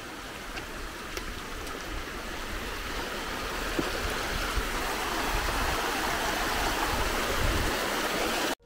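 Mountain stream cascading over rocks: a steady rush of water that grows louder over the first few seconds and cuts off suddenly near the end.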